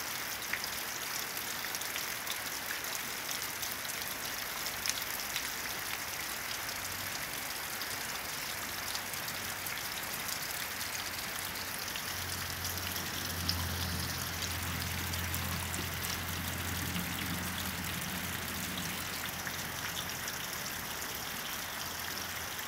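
Steady rain falling on a gravel yard and garden plants: an even hiss with scattered drop taps. About twelve seconds in, a low hum comes in under it for several seconds and then fades.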